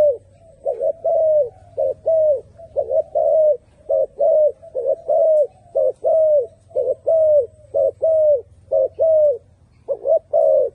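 Turtledove cooing over and over: a string of low coos, about two a second, each dropping in pitch at its end, grouped into phrases with short pauses between.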